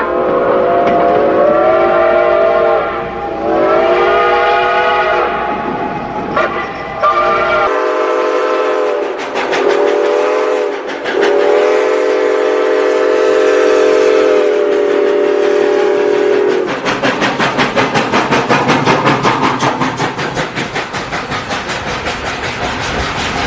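Train horn sounding a chord of several notes in blasts: two long blasts, then, after a splice to a different recording, two short blasts and a long one. A passing train follows, its wheels clattering rhythmically over the rail joints.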